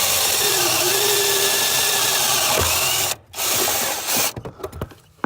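Electric drill spinning a 1 3/8-inch (35 mm) hole saw through the sheet-steel firewall, a loud grinding whir. It stops for a moment about three seconds in, runs again for about a second, then cuts off, leaving a few light knocks.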